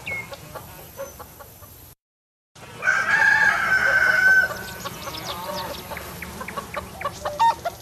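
Farmyard hens clucking, cut by a half-second of silence, then a rooster crows once for about a second and a half, about three seconds in. Rapid clucking follows.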